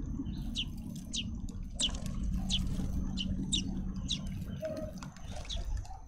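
Short, high chirps that fall in pitch, repeated about twice a second: a juvenile grey-headed sparrow begging for food. A low steady hum runs underneath.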